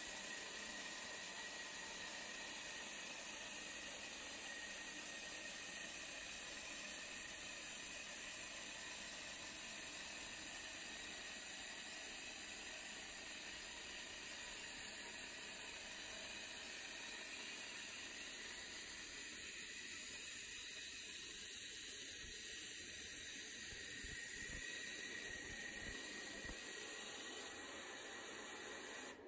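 Steady hiss from a laser pipe-welding machine as its head welds the seam of a rolled sheet-steel pipe, with a faint steady high tone.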